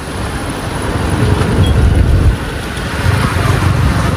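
Motorcycle on the move in city traffic: engine and wind noise building as the bike picks up speed, then dropping off suddenly a little over two seconds in.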